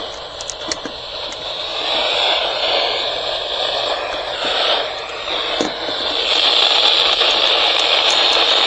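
Radio receiver static: a steady hiss with faint whistles drifting up and down in pitch and a few light ticks, and no programme coming through.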